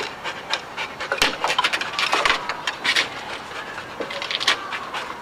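A dog's claws clicking and scrabbling on a slide, with irregular knocks and taps as she climbs.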